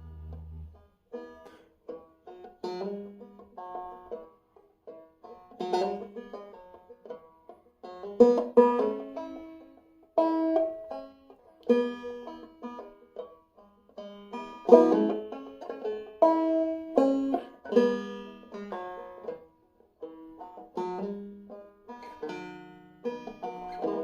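Five-string banjo played clawhammer style, picking out a simple melody over chords with hammer-ons, the strings tuned about a whole step below standard.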